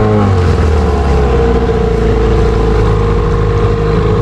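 A canoe's motor running under way. It slows to a lower pitch about half a second in, then runs steadily, with water and wind noise underneath.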